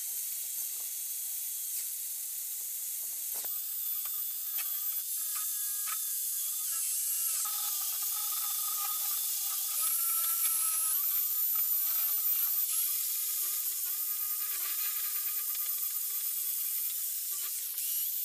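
Electric drill running with a wire brush attachment, scouring rust off the steel parts of an old bench vice down to bare metal: a steady hiss of wire on metal over the drill motor's whine, which wavers a little in pitch.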